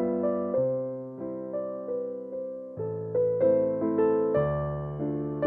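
Background music: a gentle piano melody, notes struck and fading one after another over a steady accompaniment.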